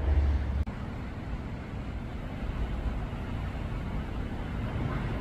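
Steady low outdoor rumble with no clear single source. It opens with a louder low burst for about half a second that cuts off sharply.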